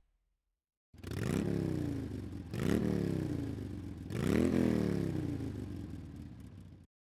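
Engine revved three times, each rev rising quickly in pitch and then dying away, starting after a second of silence and cutting off sharply near the end.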